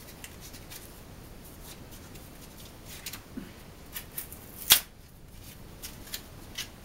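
An SD card's cardboard-and-plastic retail pack being torn open by hand, without scissors: scattered crinkling and rustling, with one sharp, loud crack about two-thirds of the way through.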